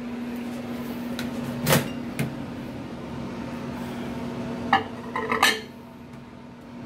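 A ceramic plate clinks and clatters as it is set down on a microwave oven's glass turntable near the end, after a sharp knock about two seconds in, over a steady low hum.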